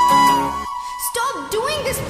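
Instrumental backing music of the song with a held high melody note. About a third of the way in, the backing cuts out, leaving the note alone for a moment before a voice starts up in the second half.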